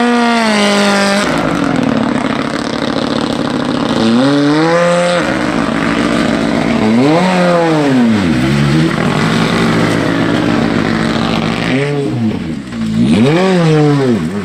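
Hyundai i20 N Rally2 car's turbocharged four-cylinder engine running loud, its revs rising and falling about four times with steadier stretches between as the car moves off and works through a tight turn.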